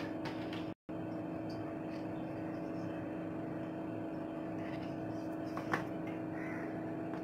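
Steady background hum of a machine such as a fan or appliance, cut by a momentary dropout just under a second in, with one faint tap a little past five seconds.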